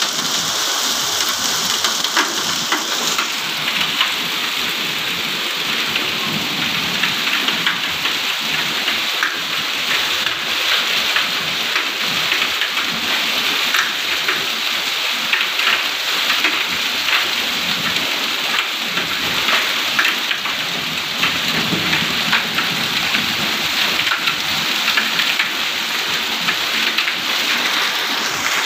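Heavy rain mixed with hail pelting a concrete yard: a steady, dense hiss dotted with many sharp ticks of hailstones striking.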